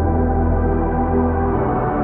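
Ambient background music: slow, held chords over a low bass note that drops out about three quarters of the way through.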